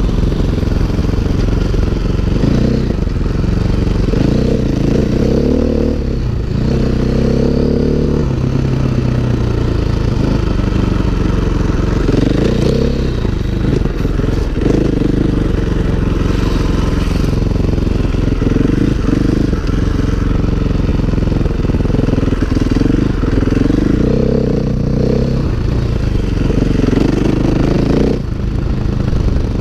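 2016 KTM 500 EXC Six Days single-cylinder four-stroke dirt bike engine under way, its revs rising and falling again and again as the throttle is opened and closed.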